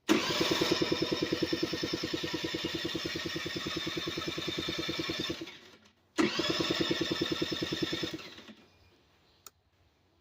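Electric starter cranking a 1985 Honda Aero scooter's engine in two tries, a long one of about five seconds and a shorter one of about two. Each time the engine turns over rapidly and evenly without catching, then winds down: a no-start.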